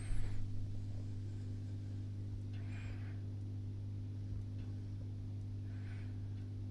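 Steady low electrical hum from aquarium equipment, with a brief low bump just after the start and two faint soft rustles later on.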